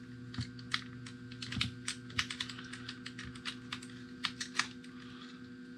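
Light, irregular clicks and taps of a small screwdriver and hands working on the plastic housing of Fat Shark FPV goggles while the underside screws are undone, over a faint steady hum.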